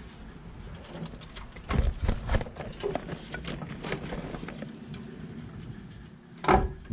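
Scattered knocks and clunks of an exhaust header being handled and worked into place on the engine's head studs, with a cluster of knocks about two seconds in and the loudest knock near the end.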